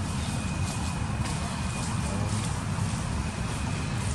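Outdoor background rumble, with wind buffeting the microphone, and a faint steady high-pitched tone above it.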